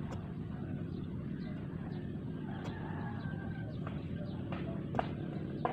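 A rooster crowing faintly in the distance over a steady low outdoor rumble, with two sharp knocks near the end.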